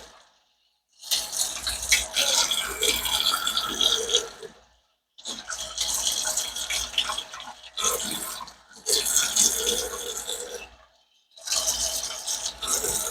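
Hot water being pumped through a clogged refrigerator freezer drain tube and splashing out, in four stretches split by brief total silences, as the line is rinsed to flush out built-up debris.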